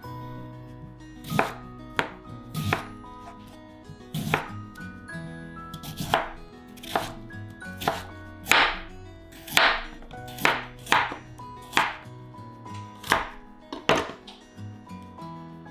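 Knife chopping on a cutting board: about fifteen separate cuts at an uneven pace, about one a second, over soft background music.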